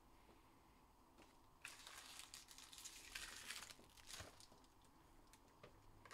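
Faint crinkling and rustling of plastic and cardboard card packaging being handled, with a light click about four seconds in.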